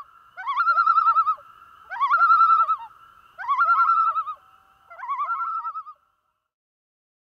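Common loon giving its tremolo call: four quavering phrases about a second apart, each sliding up into a rapid wavering, echoing between phrases.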